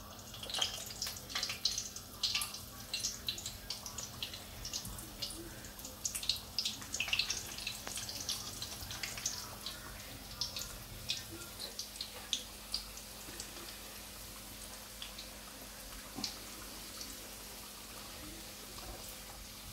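Vegetable samosas deep-frying in hot oil in a wok: dense crackling and popping of the oil that thins out after about ten seconds.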